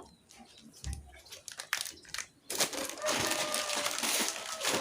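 Crinkling and crunching of a plastic instant-noodle packet being handled, starting about halfway in after a few faint clicks.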